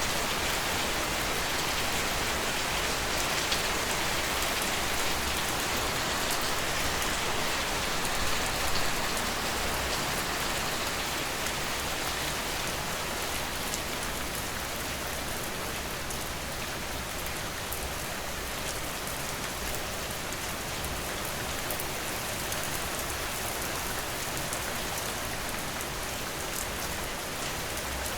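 Steady rain falling, with many fine drops pattering on a surface; it eases slightly about a third of the way through.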